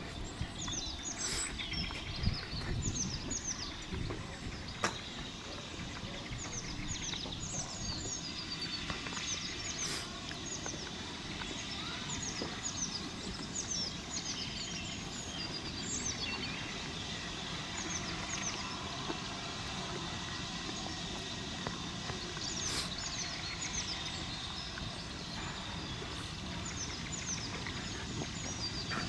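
Small birds singing with many quick, falling chirps, over a low steady rumble from a steam locomotive moving slowly tender-first out of a tunnel, with a few sharp clicks.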